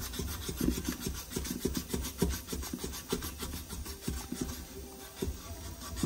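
Sandpaper rubbed back and forth on a refrigerator compressor's steel tube in quick, uneven strokes, cleaning it to bare metal so the flux and braze will take.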